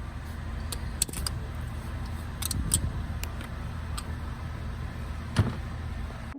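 A few light metallic clicks and taps from hand tools and parts being handled in an engine bay, over a low steady rumble. The sharpest click comes about five seconds in.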